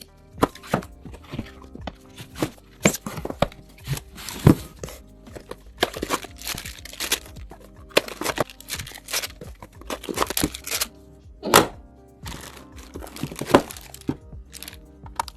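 Background music under a run of irregular clicks, taps and crinkles from PC parts and their packaging being handled, with a few sharper knocks about four, eleven and thirteen seconds in.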